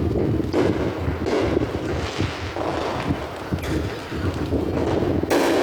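Wind buffeting a phone's microphone, with several fireworks bursts going off; the loudest comes near the end.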